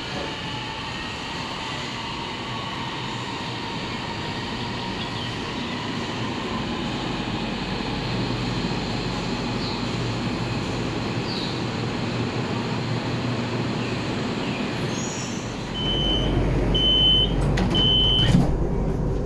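CSR Zhuzhou AMY electric LRT train running and slowing, with a steady rumble and faint falling motor whine. Near the end the low rumble grows louder, three short high beeps sound about a second apart, and a sharp knock follows.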